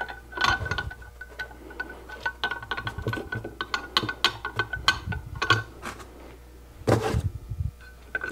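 Metal lathe banjo parts being handled and fitted by hand: small steel pieces clicking and knocking against the banjo, with a heavier clatter about half a second in and again near seven seconds as the banjo body is lifted and moved. A faint steady high tone sounds under the clicks for the first five seconds or so.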